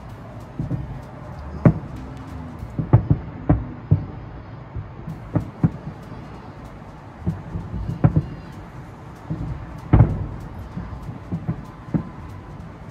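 Distant fireworks bursting: an irregular run of dull booms, some close together, the loudest about ten seconds in.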